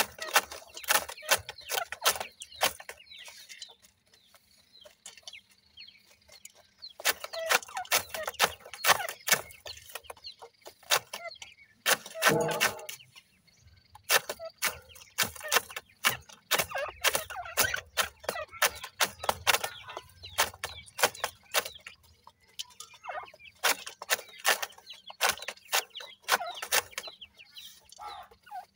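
Grey francolin (teetar) chicks making short clucking notes and clicks in quick bursts, with one longer call about twelve seconds in.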